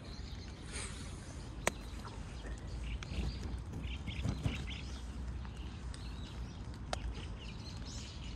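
Outdoor rain ambience: steady low noise with a few sharp taps of raindrops on a clear plastic umbrella overhead. Birds chirp faintly in the background near the middle.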